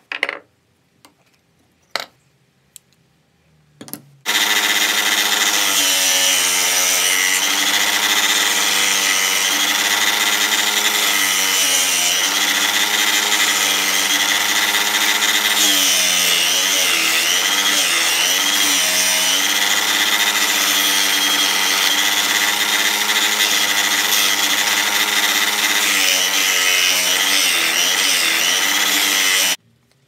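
An electric power tool's motor running steadily for about 25 seconds, starting about four seconds in and cutting off abruptly just before the end. Before it there are a few light clicks.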